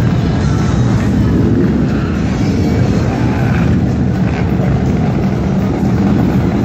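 Motorcycle engines running, a loud, steady low rumble.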